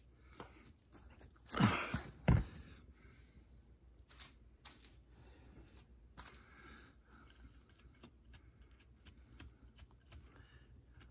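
Lawn tractor front wheel being turned over by hand: a short scrape of the tyre and rim, then a single knock as it is set down on the floor about two seconds in, followed by a few faint clicks of handling.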